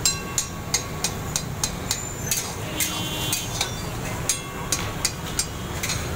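Long metal ladle knocking and scraping against a karahi wok as the mutton karahi is stirred, about three sharp clanks a second, with a brief metallic ring about halfway through, over a steady low hum.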